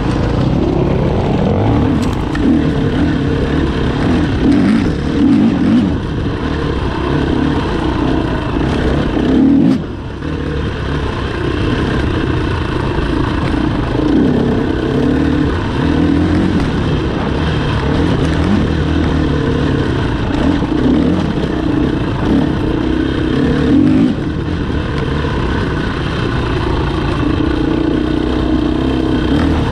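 Racing vehicle engines running and revving, their pitch rising and falling, with a brief drop in loudness about ten seconds in.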